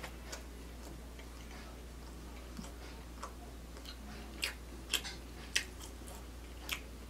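A person chewing a soft garlic knot with the mouth closed: scattered wet mouth clicks, a few sharper ones about two-thirds of the way through.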